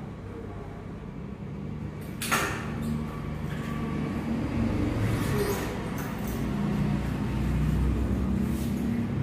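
Metallic clicks and rattles of a bicycle's chain and rear derailleur as the rear wheel is worked out of the frame, with a sharp click about two seconds in, over a low steady hum.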